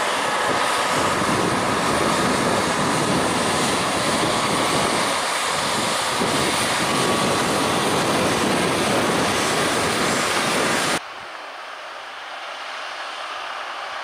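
John Deere 6215R tractor's six-cylinder engine running steadily under load, pulling a six-furrow plough through the soil close by. About eleven seconds in the sound cuts suddenly to a quieter, more distant tractor working a power harrow drill, growing slowly louder.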